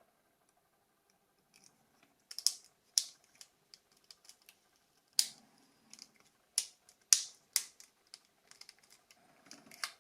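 Irregular sharp plastic clicks and taps, starting about two seconds in: the shell parts of a Nokia 6600 slide phone being handled and snapped together during reassembly.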